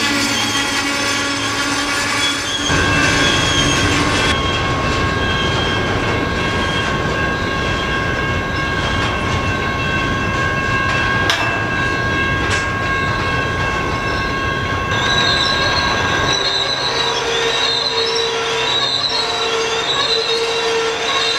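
Freight train of covered hopper cars rolling past, the wheels rumbling and clattering over the rail, with a steady high-pitched wheel squeal. Near the end the squeal wavers up and down about once a second.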